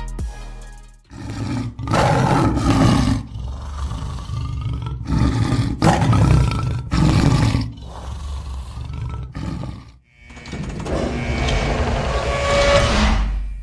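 A series of loud, rough roars from a big animal or beast sound effect, with music under them; the roaring breaks off briefly about ten seconds in, then one last long roar follows.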